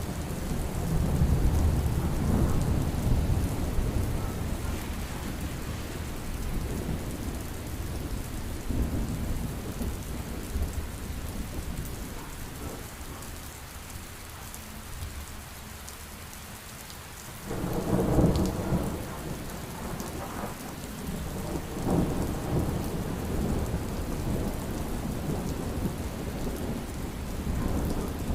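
Heavy rain falling steadily with rolling thunder: a long low rumble in the first few seconds, a quieter lull, then a sudden loud thunderclap about two thirds of the way in, followed by more rumbles.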